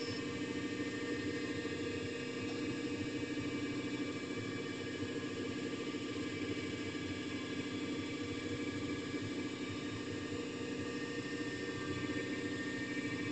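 CNC lathe running steadily while turning a small brass fitting: a constant machine hum with several steady tones above it, no knocks or pauses.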